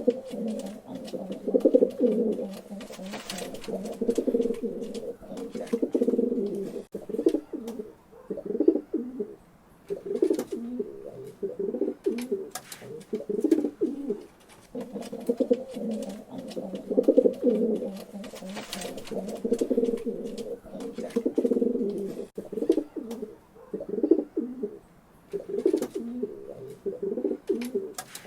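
Several pigeons cooing continuously, their low throaty coos overlapping, with a few soft clicks and flutters mixed in.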